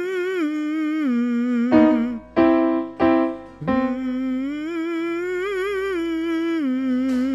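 A man hums a vocal warm-up exercise with vibrato over piano accompaniment, his pitch stepping up and back down. About two seconds in the hum breaks off while the piano plays four chords in quick succession, then he hums the next phrase.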